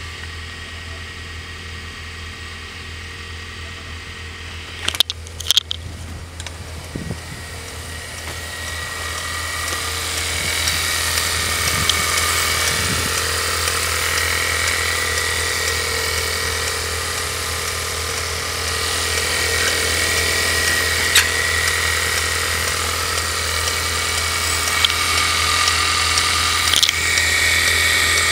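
Ford 2.3 L EcoBoost turbocharged four-cylinder engine idling steadily, with a steady low drone and a thin high whine, getting louder about a third of the way in. A few sharp clicks about five seconds in.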